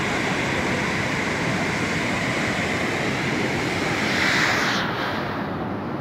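Steady rushing roar of a waterfall running in flood after heavy rain, with a heavy volume of water pouring over the drop. About five seconds in the sound turns duller as its hiss falls away.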